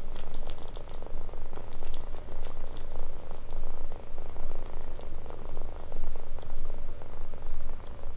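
Kitten purring steadily and loudly, the rumble swelling and easing about once a second with its breathing.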